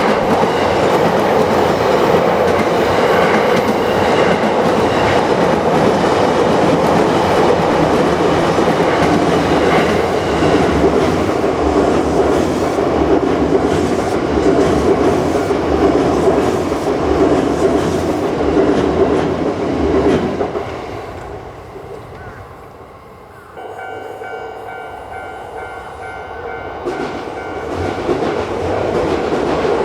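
A train passing over a level crossing, its wheels clattering on the rails for about twenty seconds before dying away. The crossing's warning bell rings on and is heard plainly once the train has gone. Another train's noise builds near the end.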